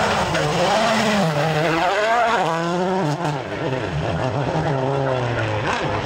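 Volkswagen Polo R WRC rally car's turbocharged 1.6-litre four-cylinder engine at full throttle, its note climbing and falling several times as it shifts gears and lifts for corners.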